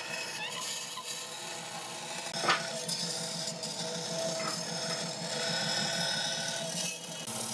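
Bandsaw blade cutting through a thick wooden board along a curved line, a steady rasping cut. A single sharp click sounds about two and a half seconds in.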